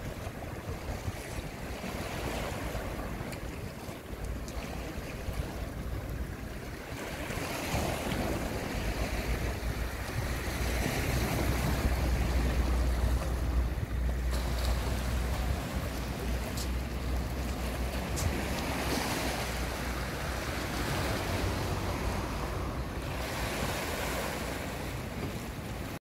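Small sea waves washing against a seawall at night, surging and easing every few seconds. Wind rumbles on the microphone, heaviest in the middle.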